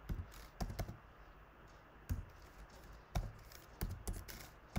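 Computer keyboard typing: about ten irregular, separate keystrokes, some in quick pairs.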